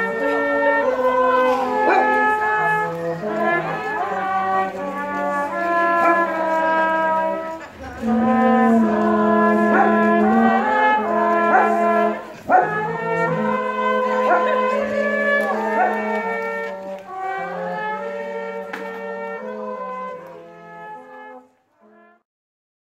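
A small brass group of trumpets and a horn plays a carol in slow held notes, with a group of carol singers singing along; the tune finishes and fades out about 21 seconds in.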